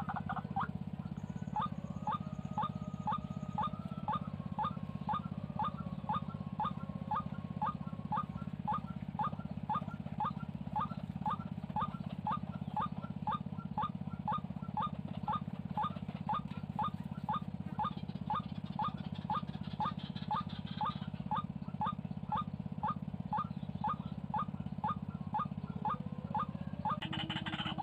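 White-breasted waterhen calling: a long run of short, downward-sliding notes repeated about twice a second, over a steady low hum.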